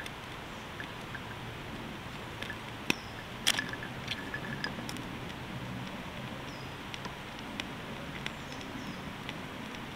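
Small freshly lit fire of tinder and a split piece of wood crackling, with sharp pops scattered through, the loudest two about three seconds in, over a steady hiss.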